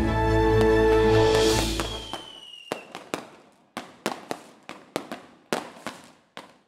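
Background music fades out, with a falling whistle near its end. Then a string of distant New Year's fireworks and firecrackers: about a dozen sharp bangs at roughly two a second, each dying away quickly in an echo.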